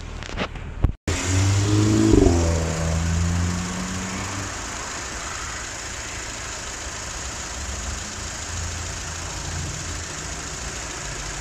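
Mitsubishi Lancer's high-mileage (about 334,000 km) 2.0-litre 4G94 four-cylinder petrol engine running, warmed up, with the bonnet open. It is louder and uneven for a few seconds after about a second in, then settles into a steady idle. This is the baseline idle of a worn engine that burns oil, before treatment.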